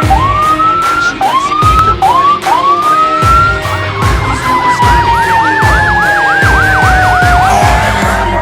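Several fire-truck sirens sounding together. First comes a run of short rising whoops. About halfway through, a long tone starts sliding slowly down in pitch while another siren yelps rapidly up and down.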